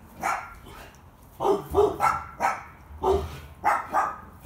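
Dog barking repeatedly: about eight short barks, several in quick pairs.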